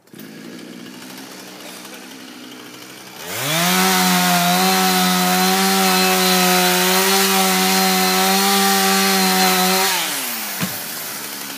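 Chainsaw idling, then opened up to full throttle about three seconds in, cutting steadily through a large tree trunk for about seven seconds. Around ten seconds it drops back to idle as the cut is finished and the trunk goes over. A single sharp knock follows shortly after.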